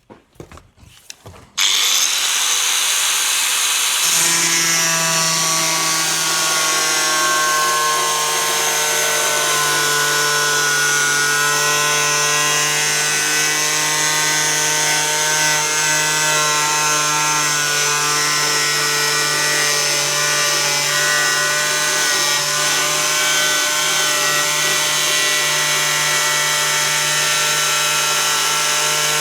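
Angle grinder switched on about a second and a half in, then cutting along a line in fibreglass sheet: a loud, steady whine with a grinding rasp from the disc in the material.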